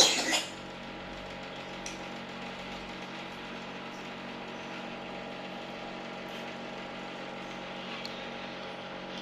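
A brief loud noise right at the start, then a small motor's steady hum with many even tones.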